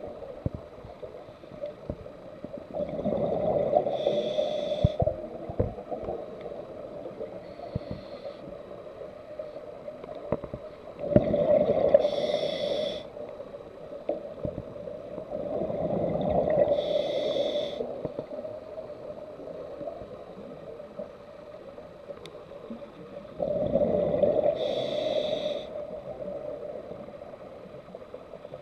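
A scuba diver breathing through a regulator underwater: four breaths a few seconds apart, each with a rumble of exhaled bubbles and a short hiss from the regulator.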